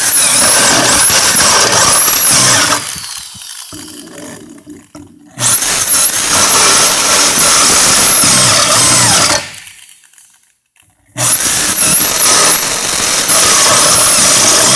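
Power drill turning a 15-step step drill bit. It runs in three bursts of a few seconds each, with a high squeal that rises and falls over the motor noise and dies down between bursts.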